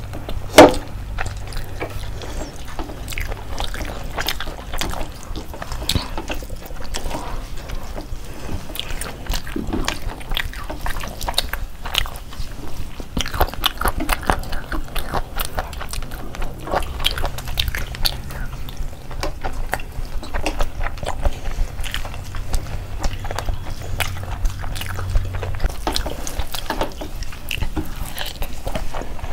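Several people chewing and biting into chicken and rice eaten by hand, with many short mouth clicks throughout and one sharp, louder click about half a second in.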